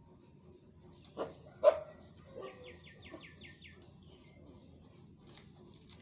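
Rose-ringed parakeet calling: two short, loud, bark-like calls about a second in, then a quick, even run of about eight high chirps.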